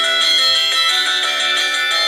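Samsung SGH-X497 playing a synthesized polyphonic MMF ringtone: a quick melody of notes changing several times a second over a chord backing. The sound is thin, with no bass.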